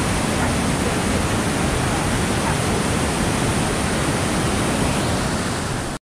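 Waterfall and cascading creek water rushing in a steady, even roar, easing slightly just before it cuts off abruptly at the end.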